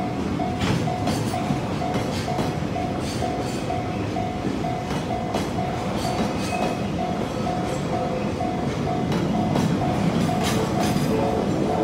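Level-crossing alarm dinging in a rapid, even rhythm over the rumble and clickety-clack of a freight train's wheels on the rails. The train noise grows a little louder near the end.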